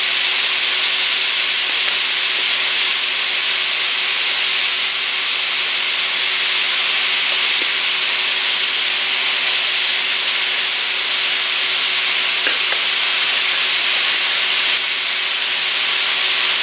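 Ground beef and Italian sausage with onion and bell pepper sizzling steadily as they brown in a skillet.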